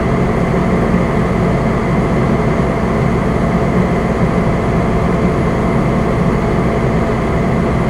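Fire engine driving at a steady speed: constant low engine rumble and road noise.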